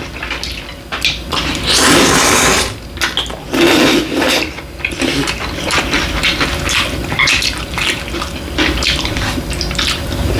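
Cold bibim ramen noodles being slurped and chewed close to the microphone: a long wet slurp about two seconds in and another about four seconds in, then many short smacking and chewing sounds.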